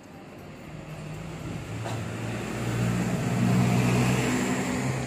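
A motor vehicle driving past: its engine and road noise grow louder to a peak about three and a half seconds in, then fade.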